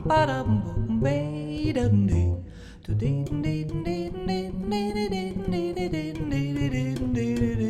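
Vocal jazz: wordless scat singing in quick short notes over a plucked double bass.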